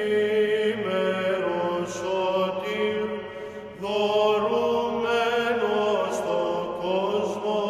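Byzantine chant: voices singing a slow, sustained melody over a held low drone note, with a short pause between phrases just before halfway.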